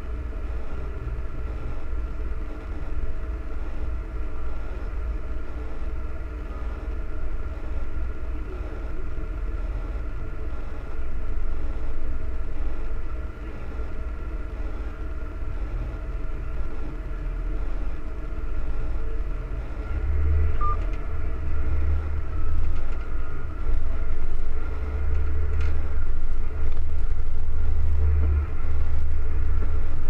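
John Deere 9460RT tracked tractor's diesel engine running steadily under load, heard from inside the cab, with a deep rumble that grows louder about two-thirds of the way through.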